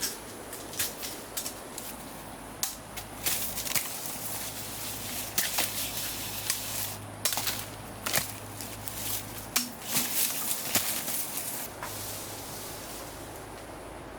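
Irregular sharp snaps and crackles coming in clusters, like dry forest undergrowth being broken and trodden through.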